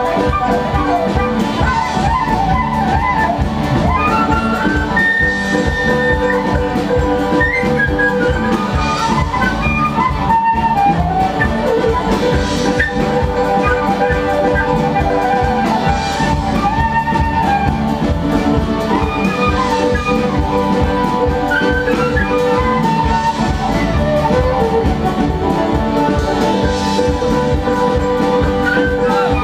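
A band playing music, with a drum kit keeping a steady beat under melodic instruments.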